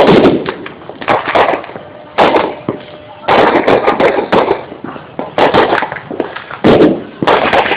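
Fireworks bursting overhead: loud bangs one after another, roughly one a second, each trailing off before the next.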